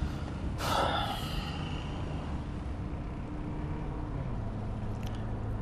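Steady low rumble of a moving car heard from inside the cabin, with a brief soft noise about half a second in.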